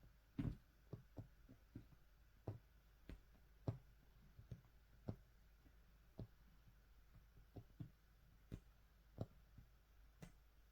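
Faint, irregular soft clicks and taps, about one or two a second, from a cat kneading its bedding.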